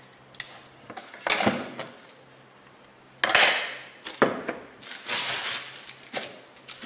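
Handling noise from a freshly glued wooden cutting board: a few sharp wooden knocks and clunks on a workbench, with crinkling plastic sheeting pulled off the glued board.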